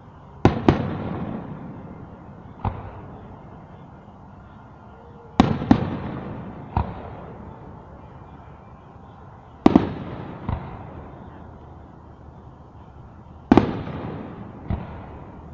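Aerial firework shells bursting in the sky: four rounds about four seconds apart, each a sharp double bang followed by a fainter bang a second or so later, echoing away over a couple of seconds.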